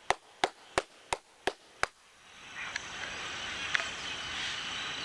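A run of six sharp claps, about three a second, made to startle birds out of the trees; from about two seconds in, a large flock of small black migrating birds sets up a swelling wash of chirping.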